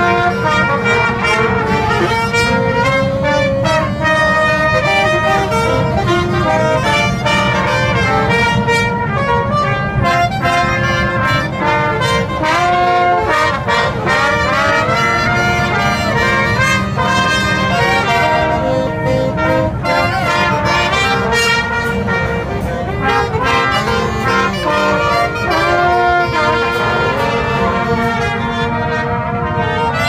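Street brass band playing an upbeat instrumental tune: trumpets, trombone and alto saxophone together.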